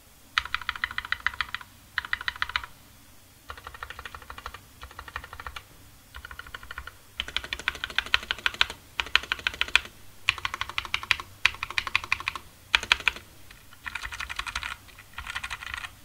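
Typing on a Digital Alliance Meca 6 Plus 65% mechanical keyboard with stock Outemu linear switches: quick runs of keystrokes a second or two long, broken by short pauses. The switches carry the spring ping that is typical of Outemu.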